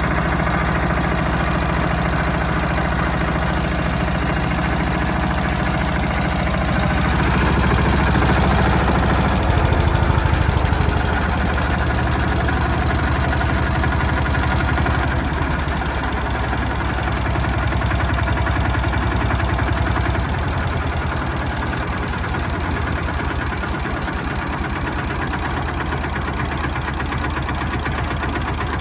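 Jiangdong JD300 30 hp single-cylinder diesel engine running steadily with a rapid, even knock of firing strokes. Its note changes and grows louder about seven seconds in, then settles back about twenty seconds in.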